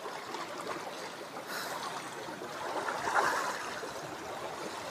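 Sea waves washing and lapping against coastal rocks, swelling a little about three seconds in.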